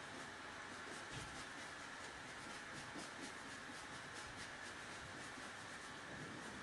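Faint, quick swishing of a paintbrush stroking chalk paint across a cupboard surface, several strokes a second, over a steady low hiss.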